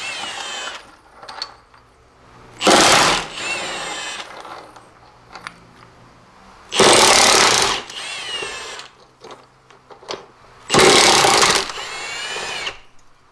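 Milwaukee cordless impact wrench hammering out the cab-mount bolts between a truck's body and frame, in three bursts of about a second each. After each burst the motor whines down in pitch.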